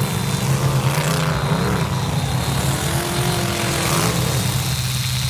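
Demolition derby cars' engines running and revving together, a steady low drone with a noisy wash over it.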